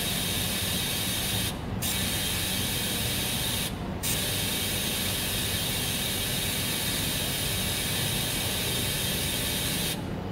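TIG (gas tungsten arc) welding arc on a stainless steel tube: a steady hiss that drops out for a moment twice, then stops about ten seconds in as the arc is broken.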